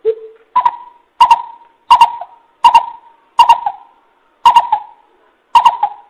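Coucal calling: a run of about eight short hoots, roughly one every 0.7 seconds. The first is lower-pitched and the rest step up to about twice as high. Each hoot starts with a sharp click.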